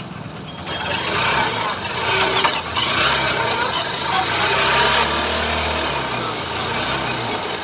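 Hero Hunk 150 single-cylinder four-stroke motorcycle engine running in gear, getting louder about a second in, its note rising and falling through the middle. A new gear pinion has just been fitted, and the gearbox runs without the clattering and knocking it had before the repair.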